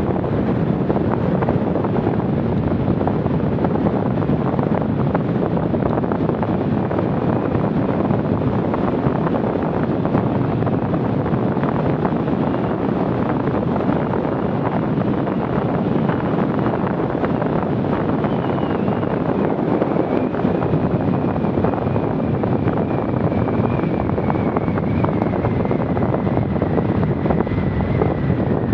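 Wind rushing over the microphone of a bicycle-mounted camera on a fast road-bike descent, a loud steady rushing noise. A faint high whine comes in partway through and slowly falls in pitch.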